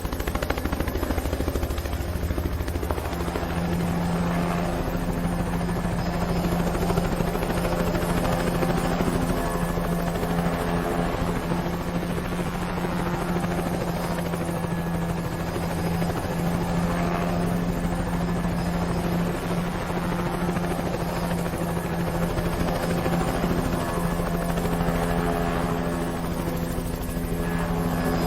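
Helicopter sound effect: a fast, steady rotor chop with a constant engine hum, growing a little stronger a few seconds in.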